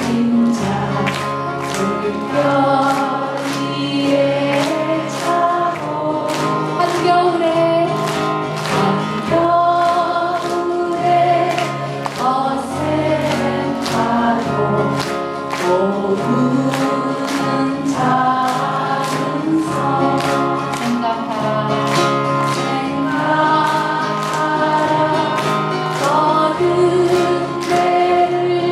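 Live Korean folk song: several voices singing together over instrumental accompaniment, with a steady beat of sharp strokes about twice a second.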